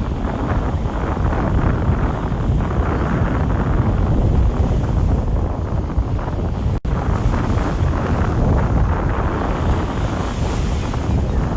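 Wind buffeting the microphone: a steady low rumble that cuts out for an instant about seven seconds in.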